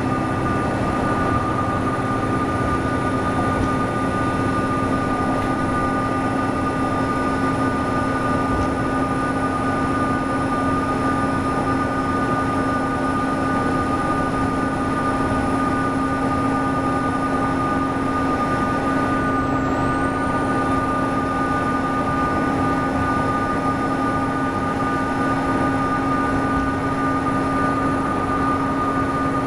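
NABI transit bus diesel engine running steadily under way, with a steady turbocharger whistle over the engine drone. The highest whistle dips briefly in pitch and recovers about two-thirds of the way through.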